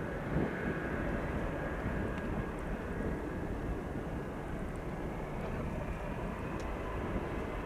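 Boeing C-17A Globemaster III's four Pratt & Whitney F117 turbofan engines running at low taxi power: a steady jet rumble with a faint high whine.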